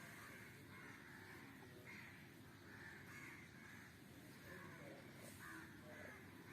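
Faint, repeated short animal calls, about two a second, over a steady low background hum.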